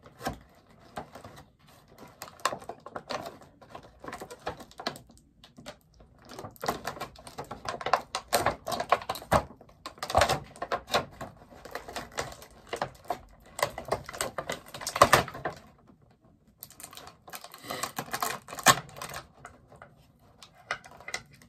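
A bobblehead's box and packaging being opened and unwrapped by hand: a run of irregular crinkles, scrapes and clicks, with short lulls about five and sixteen seconds in.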